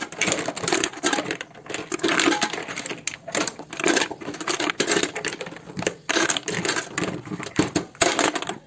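Large kapah clams dropped by hand into a stainless steel pot, clattering against each other and the metal: a dense run of hard shell clacks.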